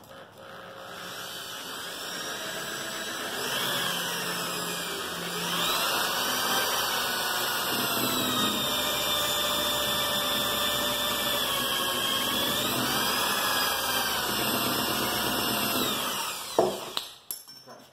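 Electric drill with a wood bit boring a hole in a wooden board. The motor whine builds up over the first few seconds and dips in pitch a couple of times as it loads, then stops near the end with a sharp knock.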